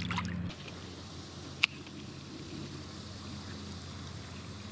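Steady rushing of creek water, with a single sharp click about a second and a half in.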